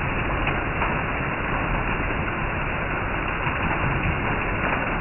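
Heavy rain falling steadily on leaves and foliage, a constant hiss of rainfall with a few sharper drop sounds.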